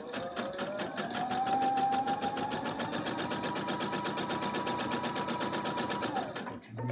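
Electric sewing machine stitching a seam through layered cotton fabric: a rapid, even clatter of the needle over the whine of its motor. The motor rises in pitch as the machine speeds up over the first couple of seconds, then runs steady and stops shortly before the end.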